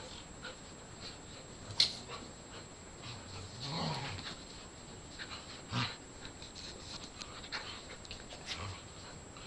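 Staffordshire bull terriers and a Rottweiler play-fighting: scuffling and snuffling with a short dog vocalisation about four seconds in. A sharp knock is the loudest sound, just under two seconds in, with a smaller thud near six seconds.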